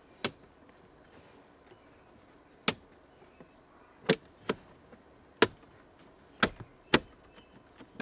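Plastic dashboard trim panels of a 2023 Toyota Tacoma being pressed back into place by hand, their clips snapping in with about seven sharp clicks at irregular intervals.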